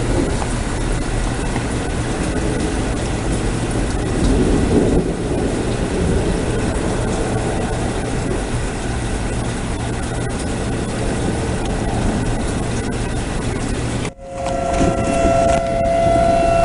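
Steady loud roar of a thunderstorm, heaviest in the low end, cut off suddenly about 14 seconds in. After the cut a tornado siren sounds as a steady two-note wail.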